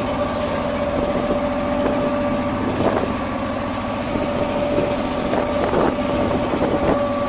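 Fishing boat's engine running steadily under way, a constant hum over rapid even firing pulses, with a couple of brief knocks partway through.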